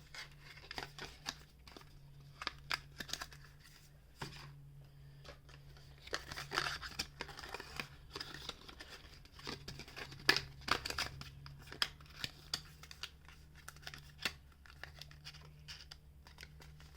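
Packaging being handled while toys are packed up: irregular crinkling, rustling and tearing-like crackles, some sharp and some in short clusters.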